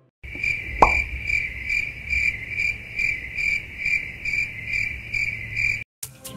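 Stock cricket-chirping sound effect: high, evenly pulsed chirps about two to three a second that start and stop abruptly, the comic "crickets" gag for an awkward, clueless pause. A brief falling tone sounds about a second in.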